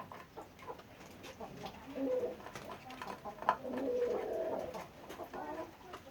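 Pigeons cooing in low, wavering calls, loudest about two seconds in and again around four seconds in, with scattered light clicks and knocks.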